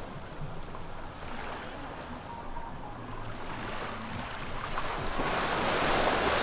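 Sea waves washing onto the sandy beach in a steady hiss that swells louder about five seconds in as a wave comes in.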